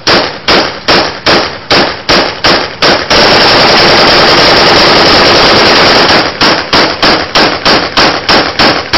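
Very loud gunfire: single shots fired at an even pace of about two and a half a second, then a continuous automatic burst lasting about three seconds, then evenly paced single shots again.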